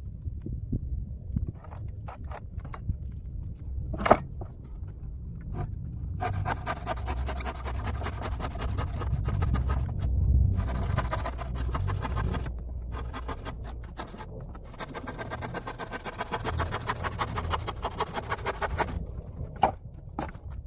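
An animal panting rapidly in two long stretches over a low rumble, with a single sharp click shortly before.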